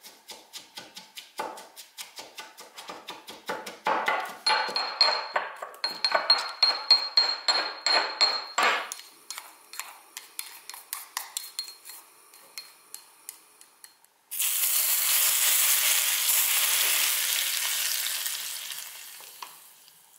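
A marble pestle knocking and grinding chopped green onions and salt in a marble mortar, a quick run of sharp knocks that ends after about nine seconds. About fourteen seconds in, hot oil poured over the crushed green onions starts sizzling suddenly and slowly fades.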